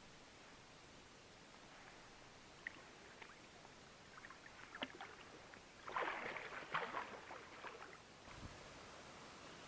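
Water splashing and sloshing as a wels catfish is released by hand beside an inflatable float tube and swims off. A few small splashes start about four seconds in, and the splashing is loudest around six to seven seconds in before it dies down.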